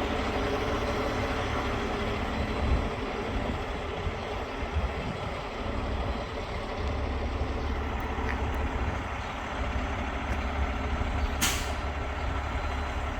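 Heavy diesel engine running steadily at a low rumble, with one short, sharp burst of air hiss near the end.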